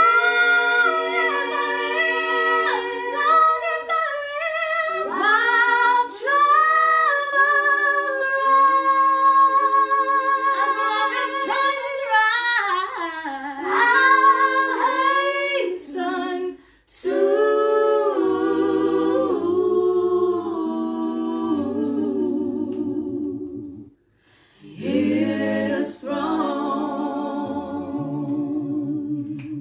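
Unaccompanied worship singing: a woman leads with a held, gliding melody and a few voices sing with her. Lower voices join in the second half. The singing breaks off twice, briefly.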